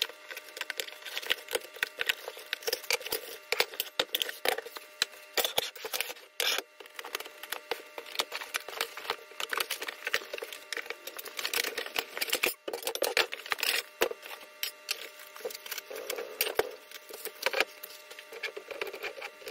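Cardboard packaging being torn open and handled: continuous crackling and rustling of cardboard, with frequent sharp clicks and knocks as the steel parts inside are shifted.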